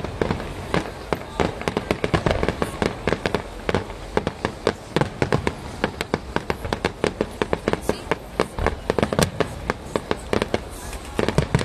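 Fireworks display with aerial shells bursting in quick succession: many sharp bangs and crackles a second, some louder booms standing out among them.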